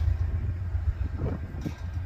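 Low, steady rumble of a diesel freight locomotive on the line.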